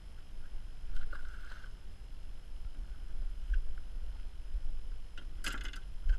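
Steady low rumble of wind and water around a small aluminium fishing boat on open water, with a couple of light knocks and a short clatter of knocks against the hull near the end.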